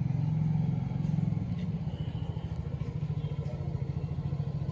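Small motor scooter's single-cylinder engine running at low speed as it is ridden slowly, a steady low pulsing note.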